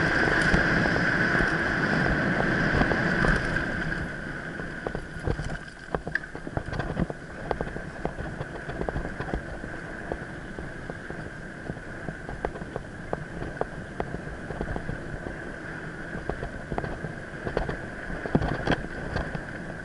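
Mountain bike rolling along a dirt forest trail, heard from a head-mounted camera: a steady rush of tyres and air with a high whine underneath, louder for the first four seconds, then quieter with many sharp rattles and knocks as the bike goes over bumps.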